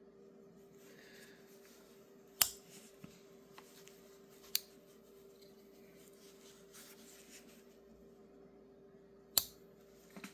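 Three sharp metallic snaps of a slipjoint pocket knife blade being worked, spaced a few seconds apart, over a faint steady hum.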